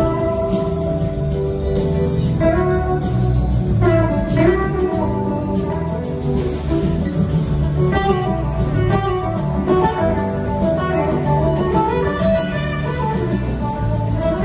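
Live electric rock band playing an instrumental passage, with an electric guitar lead of bending, gliding notes over drums and bass.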